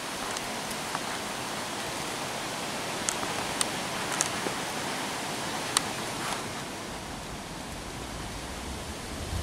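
Steady outdoor hiss with a few faint clicks scattered through the middle.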